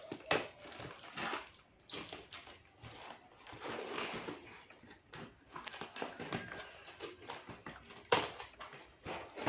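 Scissors cutting and tearing through packing tape on a heavily taped cardboard parcel. Irregular scraping, rustling and ripping are broken by sharp snips, with the loudest snap near the end.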